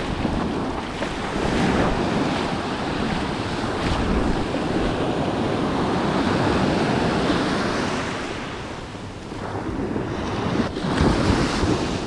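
Small ocean waves breaking and washing up a sandy beach, with wind buffeting the microphone. The wash eases briefly about nine seconds in, then builds again.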